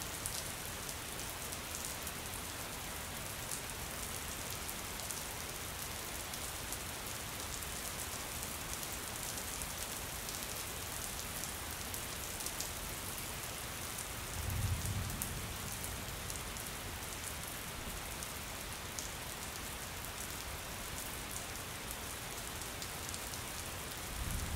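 Rain sound effect: a steady hiss of heavy rain with many pattering drops. A brief low rumble comes about two-thirds of the way through and again at the very end.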